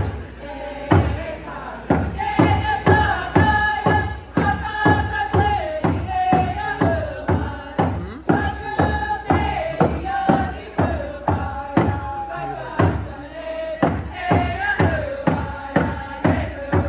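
Tlingit and Haida group song: a chorus of voices chanting in unison over a steady hand-drum beat, about two to three strikes a second.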